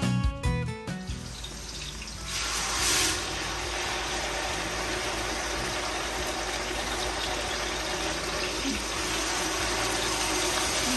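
Blended pepper puree poured from a jug into hot oil and onions in a large aluminium pot, sizzling steadily. The sizzle starts about a second in, after a moment of guitar music, and grows stronger a second later.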